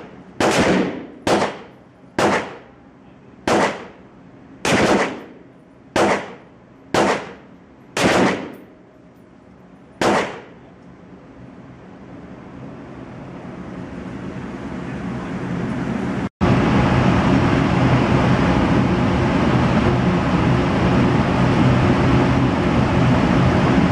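Crusader Broadsword .308 semi-automatic battle rifle with a muzzle compensator firing nine shots, about a second apart at first and slowing, each ringing off the walls of an indoor range. After a sudden cut in the second half, a steady loud rushing noise with a low hum.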